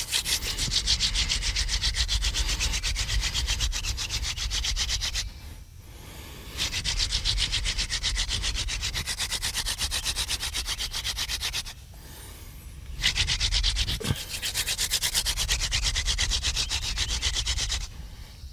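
Hand-drill fire making: a wooden spindle spun fast back and forth between the palms, its tip grinding into a hearth board with a rapid rubbing sound. It breaks off briefly twice as the hands go back to the top of the spindle. This is the fast, hard-pressed stage after smoke appears, which builds the coal.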